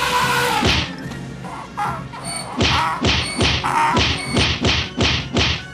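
A rapid flurry of slapstick punch and whack sound effects, about three blows a second, in a staged comic fist-fight. A short cry comes before the blows at the start.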